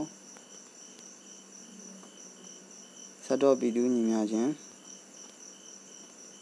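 Crickets chirring steadily in the background, a thin high-pitched trilling that never stops. Just past three seconds in, a voice sounds for about a second.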